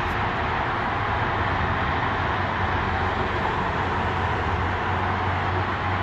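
Steady road traffic noise from a multi-lane road: a continuous wash of tyre and engine sound with a low hum underneath.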